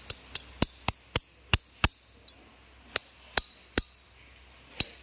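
Steel spanner clinking against the bolts and fittings of a diesel engine's cylinder head while the injector nozzle lock plates are tightened: about a dozen sharp, ringing metal clinks, irregularly spaced, with a lull around the middle.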